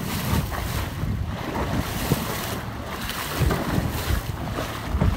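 Wind buffeting the microphone over the rush of sea water along the hull of a boat under way, a steady noisy wash with gusty low rumbles.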